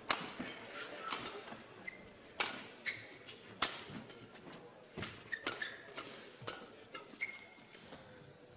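Badminton rally: a string of sharp racket-on-shuttlecock hits, one every second or so, with short squeaks of shoes on the court between them.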